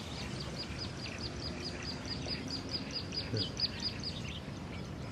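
A bird calls a fast run of short, high, repeated notes, about five a second, which stops about four seconds in.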